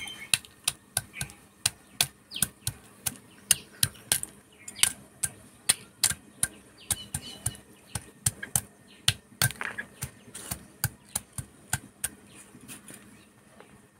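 A stone pestle knocking and crushing crisp fried lentil dumplings (bori) on a stone grinding slab: sharp crunchy knocks, about two to three a second, that stop near the end.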